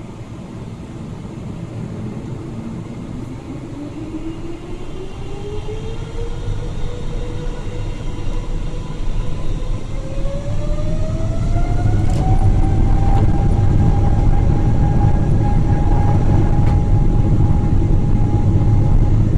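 Boeing 777-300ER's GE90 engines spooling up to takeoff thrust, heard inside the cabin: a whine that climbs in pitch and levels off a little past halfway, over a low rumble that grows louder as the takeoff roll begins.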